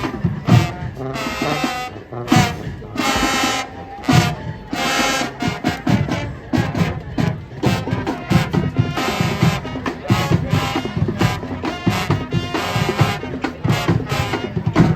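High school marching band playing its field show: the brass section blasts short, punchy chords in rhythm over the drums.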